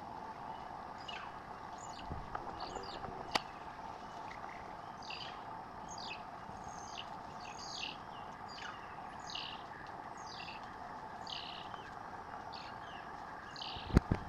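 Banded mongooses chirping: short high-pitched calls repeated about once or twice a second while they mob a monitor lizard, over a steady background drone. A sharp click sounds about three seconds in, and two knocks near the end.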